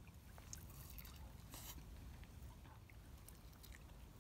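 Faint sounds of someone eating from a steel camp mug: scattered small clicks and a brief scrape about a second and a half in, over a low steady rumble.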